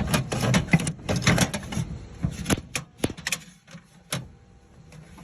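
Tools being handled and shifted in a metal toolbox drawer: a run of quick clattering and rubbing clicks, then a few separate sharp knocks, the last about four seconds in.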